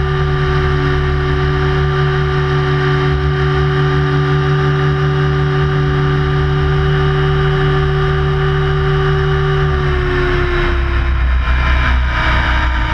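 Radio-controlled helicopter's motor and rotor running steadily, heard from on board. Its pitch drops a little about ten seconds in as the helicopter comes down towards the ground.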